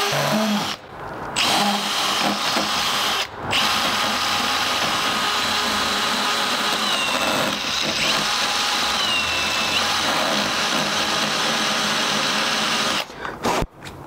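Cordless drill spinning a carbide double-cut burr, grinding away the edge of a steel strike plate's latch opening. It runs in long steady stretches with two short pauses near the start and a few faint squeals in the middle, then stops about a second before the end.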